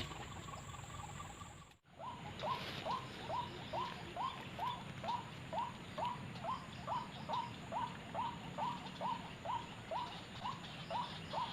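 White-breasted waterhen (ruak-ruak) calling: a short note that falls in pitch, repeated evenly about twice a second, starting about two seconds in after a brief dropout.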